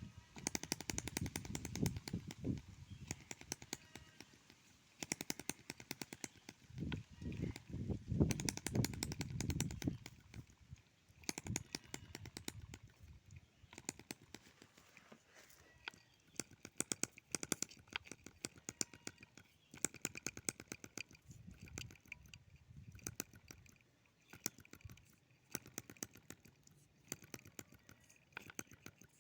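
Homemade two-stroke engine built from a refrigerator compressor, running with a rapid, uneven popping of firing strokes. It gets louder in two spells during the first ten seconds.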